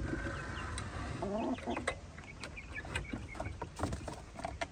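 Hens clucking and chirping in short calls while the wire door of their coop is opened and they run out, with several sharp clicks and knocks from the door.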